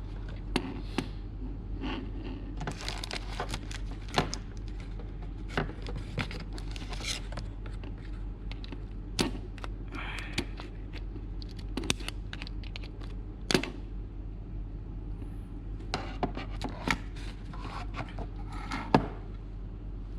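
Hands handling and working on an opened automatic solder-feed gun: scattered clicks, taps and short plastic rustles and scrapes, over a steady low hum.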